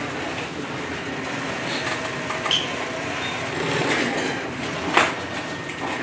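Steady hum of an industrial sewing machine's motor running idle, with light handling clicks and one sharp clack about five seconds in.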